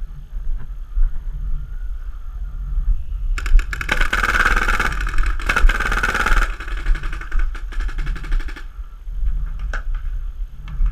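Paintball marker fire: a long string of rapid shots starting about three and a half seconds in and stopping near the end of the second third, with a brief break partway through. A low steady rumble of wind on the microphone lies under it.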